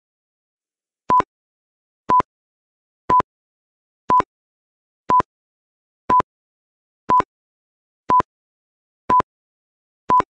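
A countdown timer beeping: ten short, identical electronic beeps at one steady pitch, one per second, starting about a second in. Each beep marks one second ticking off the countdown.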